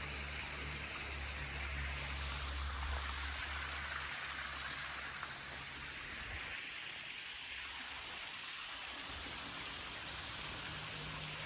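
Water of a small spring-fed natural waterfall splashing and rushing steadily, with a low hum underneath that stops about six seconds in.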